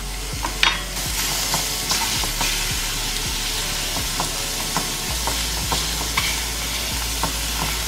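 Diced onion, paneer and bell peppers sizzling in a little oil in a steel kadhai, with a spoon clicking and scraping against the pan as they are stirred. The sizzle grows louder about a second in.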